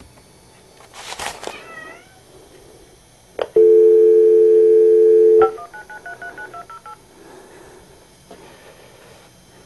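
A cat meows about a second in. Then a telephone dial tone sounds steadily for about two seconds, followed by a quick run of touch-tone beeps as a phone number is keyed in.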